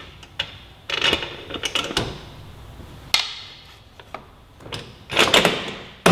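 Metal clicks and scrapes as a motorcycle's rear axle is worked into the swingarm and through the wheel hub and spacers, in short bursts of scraping about one, three and five seconds in.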